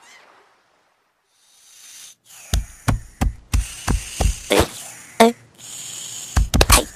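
Cartoon sound effects: a run of sharp knocks, about three a second, starting after two seconds of silence. The knocks pause briefly near the end, then come in a last quick cluster.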